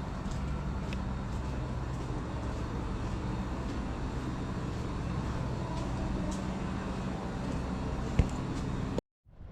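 Steady low hum of an engine or nearby traffic, with a few faint clicks and one sharp knock about eight seconds in; the sound cuts off suddenly near the end.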